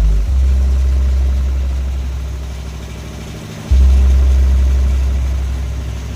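Two long, deep bass notes from music played through a DJ sound system of twelve bass speaker cabinets. Each note fades slowly, and the second hits just past halfway.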